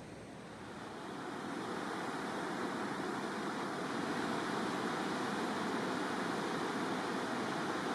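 Steady rush of water pouring through a river weir, growing louder over the first two seconds and then holding even.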